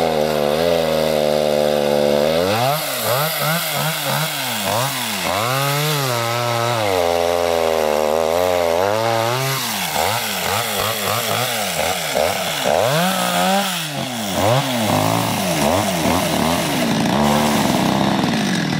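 Two-stroke chainsaw cutting through pond ice. The engine holds steady briefly, then its revs rise and fall again and again as the bar bites into the ice and water and is worked up and down.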